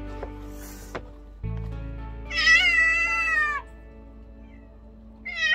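A cat meowing twice over background music: one long meow about two seconds in that drops in pitch at its end, and a short one just before the end.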